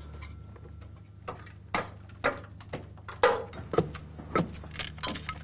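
A hand pick chipping opal out of a sandstone mine wall: a run of sharp strikes, about two a second, starting about a second in, each with a glassy clink like breaking glass. A steady low hum runs underneath.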